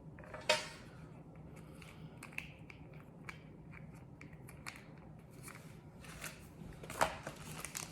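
Small parts and packaging from a drone box being handled: scattered light clicks and rustles, with a sharper click about half a second in and a louder rustle around seven seconds.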